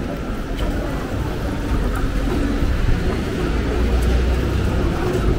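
Steady city street noise, mostly a low rumble of passing traffic.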